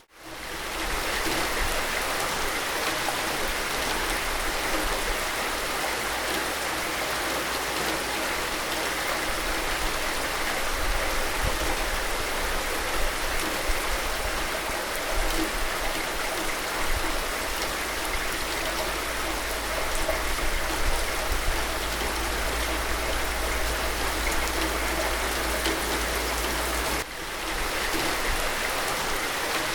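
Steady, even rain. It fades in at the start, and about 27 seconds in it cuts off suddenly and swells back, like a loop seam.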